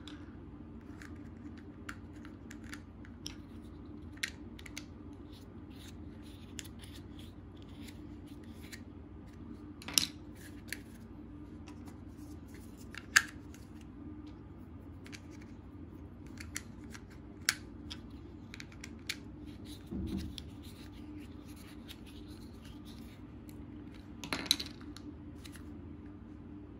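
Hard plastic toy parts clicking and tapping as the legs of a take-apart dinosaur toy are fitted on and fixed with plastic screws: scattered sharp clicks, the loudest about ten and thirteen seconds in, with a duller knock near twenty seconds.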